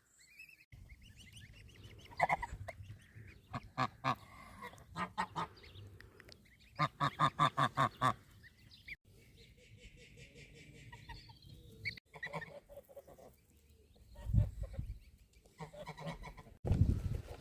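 Geese honking in short repeated calls, including a quick run of about eight honks around the middle. A couple of low thuds come near the end.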